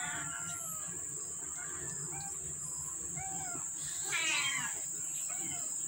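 Very young kittens mewing: a string of short, faint, high-pitched mews, with one louder, longer cry about four seconds in. A steady high-pitched whine runs underneath.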